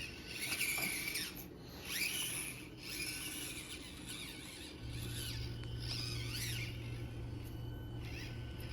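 Axial SCX24 micro crawler's small electric motor whining in short bursts that rise and fall in pitch with the throttle, with a steady low hum coming in about five seconds in.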